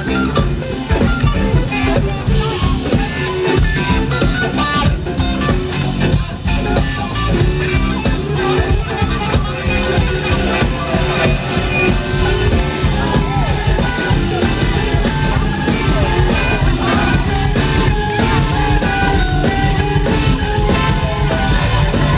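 Live blues-rock band playing an instrumental passage: electric guitar lines over keyboards, bass and drums.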